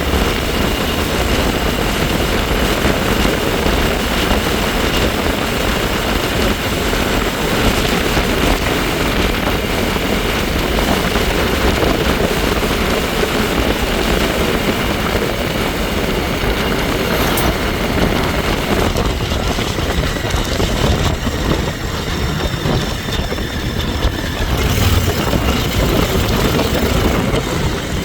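Wind rushing over the microphone during a ride on a bike, with a faint steady high whine from the bike that fades out in the last third.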